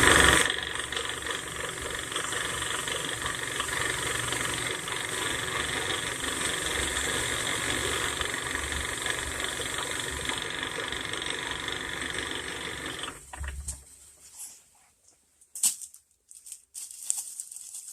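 Electric wire-wheel brush running steadily as it scours a broken steel snowblower wheel down to bare metal. It stops about 13 seconds in, followed by a few light clicks and knocks.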